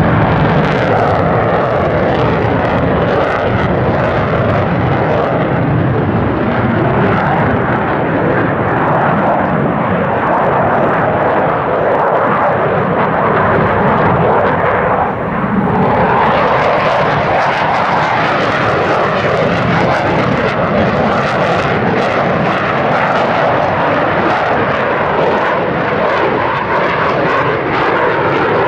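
F-15J Eagle's twin Pratt & Whitney F100 turbofans, loud continuous jet engine noise as the fighter maneuvers overhead, with a brief dip in loudness about halfway through.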